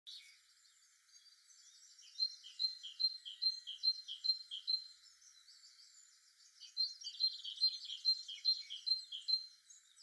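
A songbird singing two phrases, each of about seven quick, evenly repeated notes, the first about two seconds in and the second near the middle, with fainter chirping of other birds behind.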